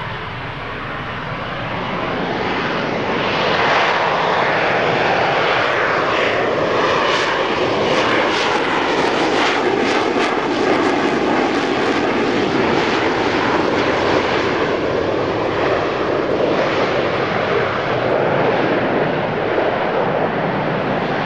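Harrier GR9A jump jet's Rolls-Royce Pegasus engine in a low display pass: a loud, steady jet rush that swells over the first few seconds and then holds, with a stretch of crackle through the middle.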